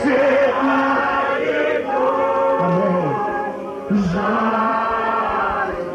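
Church congregation singing a slow worship song together, several voices holding long, drawn-out notes.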